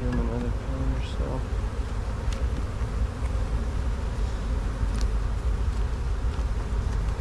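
Honeybees buzzing steadily around an open hive, over a constant low rumble, with a few faint light clicks.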